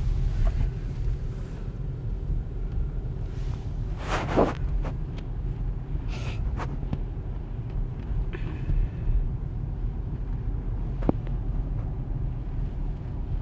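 Car driving, with a steady low road and engine rumble heard from inside the cabin. There is a short louder noise about four seconds in and a few faint clicks.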